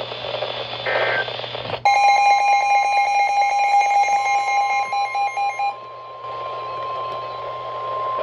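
NOAA Weather Radio alert: short bursts of the digital SAME header data, then a weather radio receiver's loud electronic alarm sounding for about four seconds, ending in quick pulses. The steady 1050 Hz warning alert tone from the broadcast carries on beneath and after it, signalling that a new warning is about to be read.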